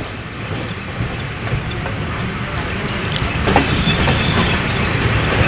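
Passenger train running on the rails, heard from on board: a steady rumble of wheels on track with scattered clicks, slowly growing louder.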